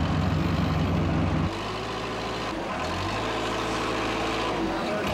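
Heavy mobile crane's diesel engine working hard with a pulsing beat, then dropping to a lower, steadier running about a second and a half in. The 14-ton crane is getting stuck in the soft lawn.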